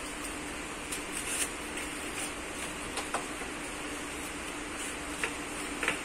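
A steady machine hum with a few light clicks and taps as an e-bike and its foam packing are handled.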